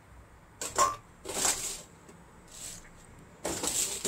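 A ladle stirring and scraping through cooked bihon noodles in a metal pot, in several short bursts; the sharpest comes a little under a second in.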